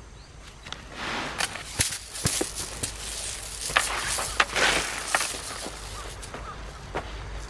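Footsteps crunching and scuffing on dry, loose tilled soil, with a few sharp clicks, busiest from about a second in until near the middle.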